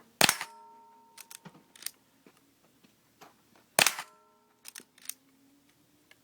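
Two lever-action rifle shots about three and a half seconds apart, each followed by a steel target ringing from the hit. Between the shots come lighter clicks and clacks as the lever is worked to chamber the next round.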